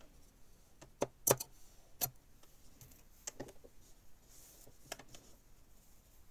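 Handling at a domestic sewing machine: a few light, irregularly spaced clicks and taps, with a sharper cluster about a second in. There is no steady motor run.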